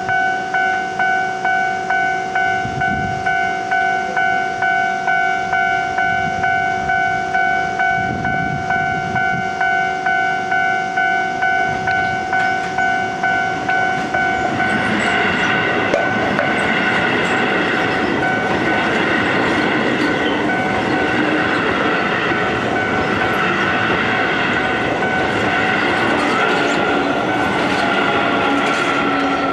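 Level-crossing warning bell ringing in steady, evenly repeated strokes, about one and a half a second. From about halfway a Keio electric train joins it, rolling through the crossing with its wheels clattering over the rail joints while the bell keeps ringing.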